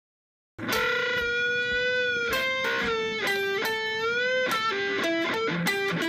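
Electric guitar music: a melody of long, slightly bending notes that starts after a brief dead silence about half a second in.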